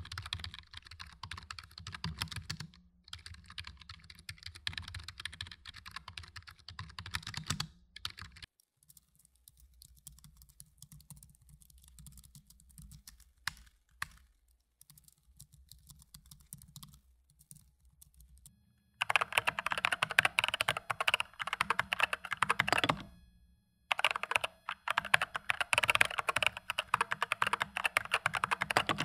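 Typing on three keyboards in turn. First an Elecom wireless membrane keyboard, then from about eight seconds in the much quieter pantograph (scissor-switch) keys of a MacBook Pro. From about nineteen seconds in comes much louder typing on an Epomaker SK64 mechanical keyboard with brown (tactile) switches.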